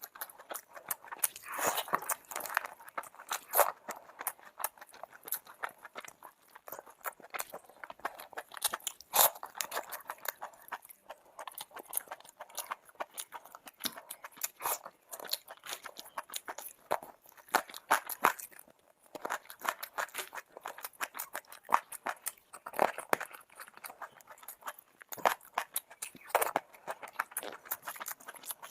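Close-miked eating sounds: a person chewing and biting food, a dense run of small crunches and mouth clicks.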